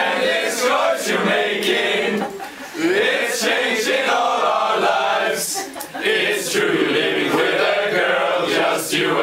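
A group of men singing together in chorus, in sung lines with short pauses about two and a half seconds in and again about six seconds in.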